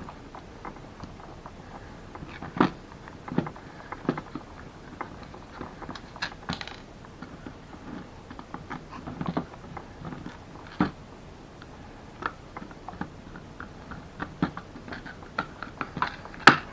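Hand screwdriver backing small screws out of a plastic receiver case, almost certainly 3D-printed: scattered light clicks, scrapes and taps of the driver, screws and case, with a sharper click near the end.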